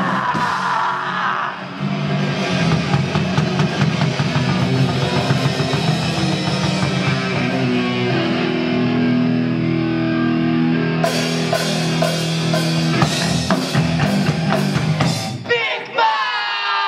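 Live rock band playing an instrumental passage on electric guitars and a drum kit, loud, with the cymbals coming in harder about eleven seconds in. The band cuts off abruptly near the end and a voice yells.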